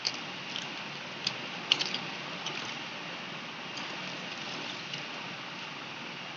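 Light plastic clicks and taps as a paintbrush and fingertips touch the clear plastic cover of a watercolour paint tray in a plastic art case, over a steady hiss. The clicks are scattered, with a quick cluster about two seconds in.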